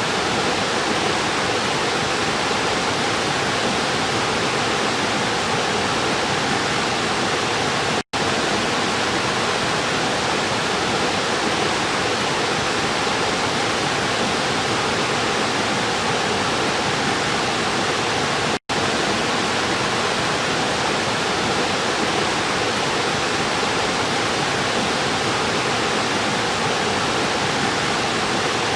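River water rushing steadily, with no birds or other sounds standing out. It cuts out for a split second twice, about 8 and 18½ seconds in.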